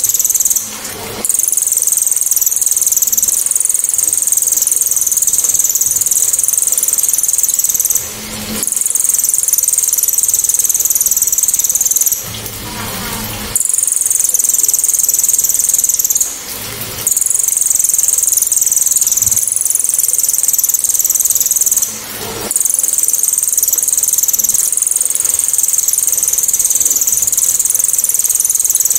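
Caged cililin (lesser racket-tailed drongo) giving its 'tembakan' call: a loud, sharp, clear, very high-pitched rapid-fire song held in long runs, broken by short pauses about every four to eight seconds.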